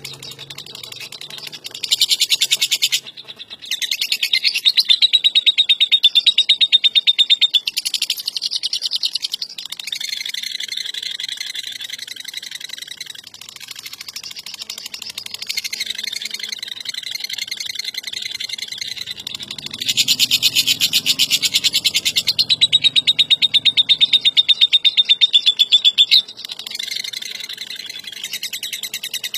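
Lovebird giving its long 'ngekek': fast, harsh chattering trills held for several seconds at a time, broken by short pauses.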